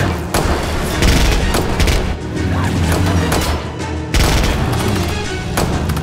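Action film soundtrack: dramatic score music mixed with gunfire and loud booming hits, the biggest about a second in and again just after four seconds.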